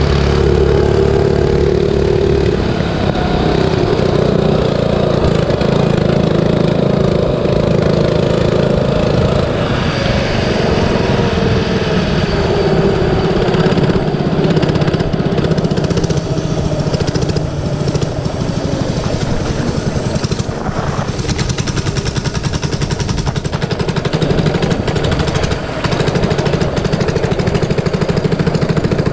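Small single-cylinder four-stroke engine of a 97cc Baja mini bike running under throttle while ridden, a fast rattling train of firing pulses whose pitch rises and falls with the throttle, with wind noise on the microphone.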